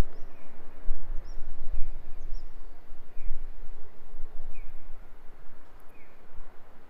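A bird calling with short downward chirps, repeated about every second and a half, with higher chirps in the first half. Under it runs an uneven low rumble.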